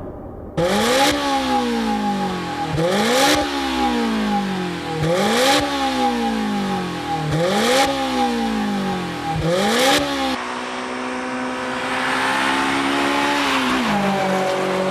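Honda S2000's four-cylinder engine through an aftermarket performance exhaust, revved five times about every two seconds, each rev rising sharply and falling back more slowly, with a steady high tone alongside. About ten seconds in, it changes to a steady engine note that drops to a lower, even note near the end.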